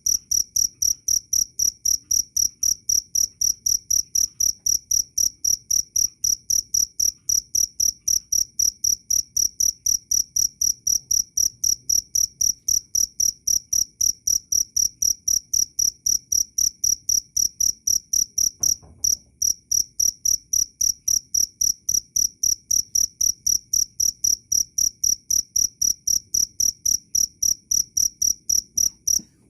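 Cricket chirping loudly in a steady, even rhythm of about three high-pitched chirps a second, with one brief break about two-thirds of the way through.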